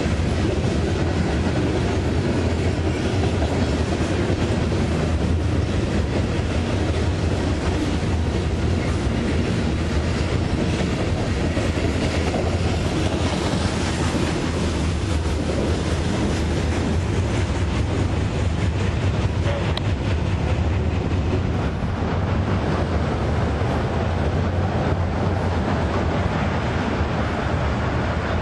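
Freight train of covered hopper cars rolling past: a steady rumble with the clatter of the wheels on the rails.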